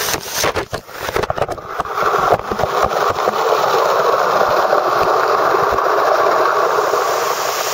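Small waterfall pouring close by: a steady, loud rush of falling water. Irregular knocks and crackles break into it during the first two seconds.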